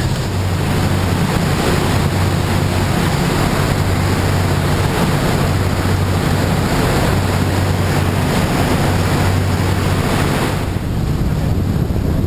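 A passenger boat's engine droning steadily under way, with the churning wake rushing and wind buffeting the microphone. Near the end the rushing hiss falls away and the low engine hum carries on.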